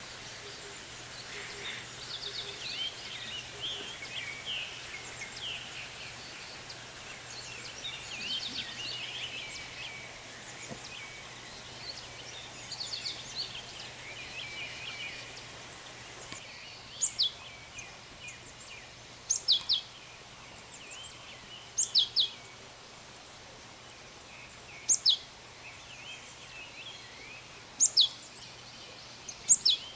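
Wild birds singing, with many small chirps overlapping. From about halfway, one bird gives loud, sharp, falling calls in pairs every two to three seconds over a steady background hiss.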